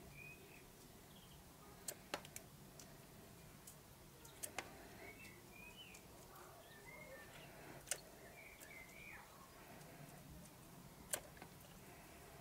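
Near silence, with faint short bird chirps now and then and a few scattered sharp clicks.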